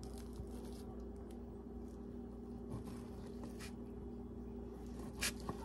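Kitchen knife slicing raw sirloin steak into chunks on a cutting board: faint, scattered taps of the blade on the board, the loudest about five seconds in, over a steady low hum.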